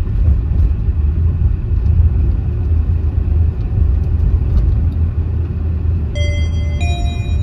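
Steady low rumble of a moving vehicle, road and wind noise. About six seconds in, a few clear chiming music notes begin over it.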